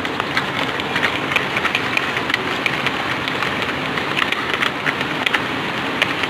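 Wire balloon whisk beating egg and sugar batter by hand in a plastic bowl: a steady wet swishing with many small irregular clicks of the wires against the bowl. The mix is being beaten until the sugar dissolves and the egg foams up.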